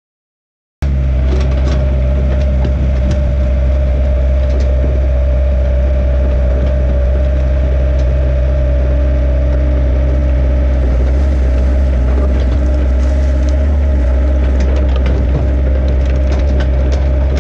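Yanmar compact excavator's diesel engine running steadily under load, with scattered clanks and crunches from the working machine. It starts abruptly about a second in.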